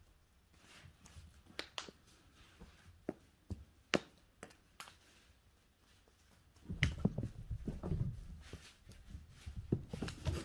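A house cat playing with a feather wand toy on a rug and hardwood floor: scattered light taps and clicks, then from about seven seconds in a run of soft thumps and scrabbling as it pounces and scrambles after the toy.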